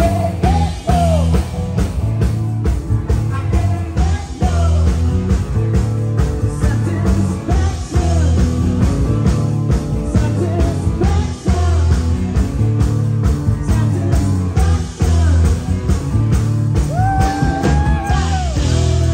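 Live rock band playing loud: a steady drum beat and heavy bass, with a woman singing the melody at times.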